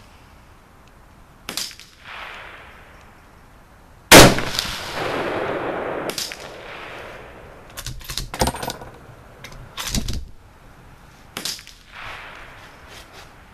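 A Ruger American bolt-action rifle in .308 Winchester fires one loud shot about four seconds in, its crack trailing off in a long echo. Several fainter sharp cracks and clicks come before and after it.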